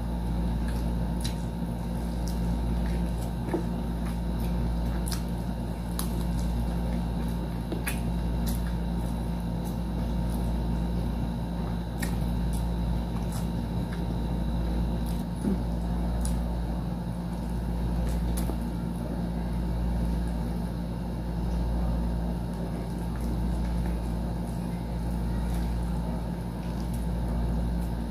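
Close-miked chewing and mouth sounds of eating fried chicken and rice, with scattered sharp clicks, over a steady low hum.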